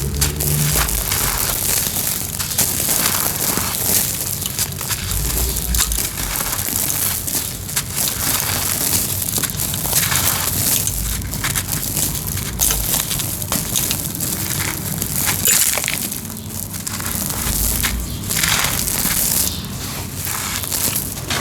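Brittle homemade cement being crushed and crumbled continuously, a dense gritty crunching with many crackles and small snaps and an occasional low thump.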